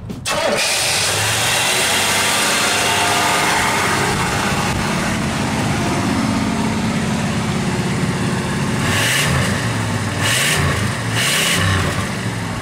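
The Cutlass's Oldsmobile Rocket 350 V8 running steadily at idle, then revved in three short blips, about nine, ten and eleven seconds in.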